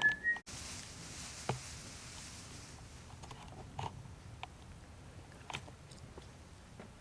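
A high whistled note that breaks off sharply about half a second in, then faint, scattered clicks and light scrapes of something being handled over a low hiss.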